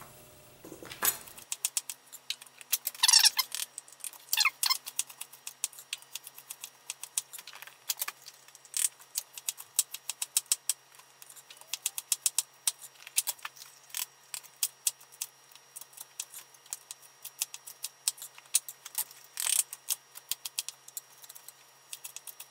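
Chef's knife chopping bell and poblano peppers into strips on a wooden cutting board: a long run of sharp taps of the blade on the board, several a second, with a few louder, longer noises among them.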